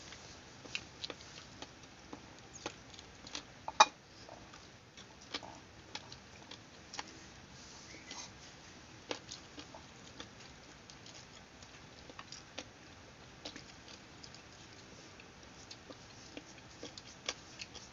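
Small, scattered clicks and smacks of people eating with their hands: chewing, lip smacks and plates being handled, with one sharper click about four seconds in.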